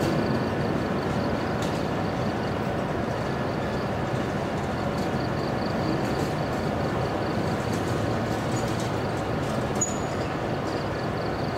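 Steady rumbling rail-yard noise around standing 45-ton electric locomotives, with a faint high pulsing tone above it and a short high chirp near the end.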